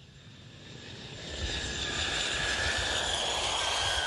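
A-10 Thunderbolt II's General Electric TF34 turbofan engines in flight: a rushing jet noise fades in over the first second and a half and holds steady. A high whine rides on top and slides slowly down in pitch near the end.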